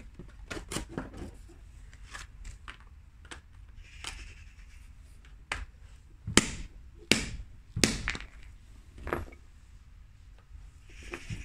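Short knocks and rustling as a fresh piece of cardboard and a cast resin test disc are handled and set down on a brick. A scatter of light taps comes first, with a rustle about four seconds in, then three louder knocks about two thirds through.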